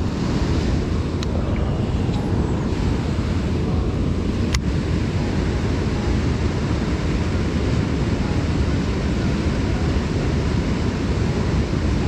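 Steady rush of river water pouring over a spillway, with wind on the microphone. A single sharp click about four and a half seconds in.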